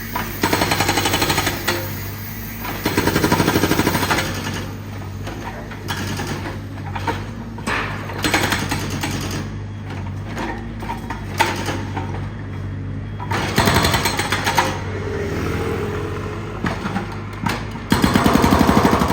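Pavement breaker (jackhammer) hammering in bursts of rapid blows, with a machine hum running steadily underneath; the heaviest bursts come about half a second in, around three seconds in, near fourteen seconds and near the end.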